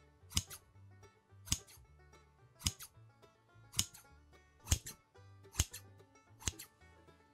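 Kitchen scissors snipping diagonal scores into soft bread dough: seven sharp snips, about one a second, over soft background music.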